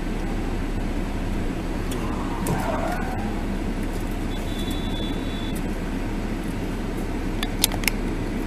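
Steady car engine and road noise heard inside the cabin through a dashcam microphone, with a few short sharp clicks near the end.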